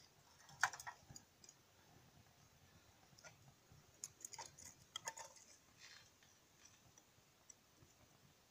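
Wood chips crackling as they burn in a fireplace: faint, irregular pops and clicks, with a cluster of them around the middle.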